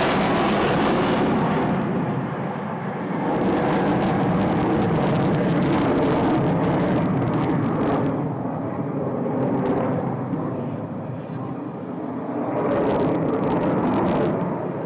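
Jet fighter engines running loud, the roar swelling and easing several times with bright hissing stretches.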